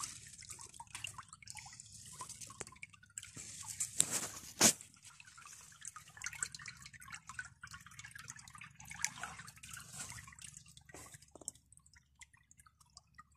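Faint, irregular dripping of water, with scattered small ticks and two sharper clicks about four seconds in.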